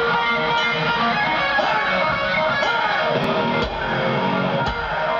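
Live heavy metal electric guitar playing a lead line with bent notes over a held tone, through a concert PA. A short hit marks a beat about once a second.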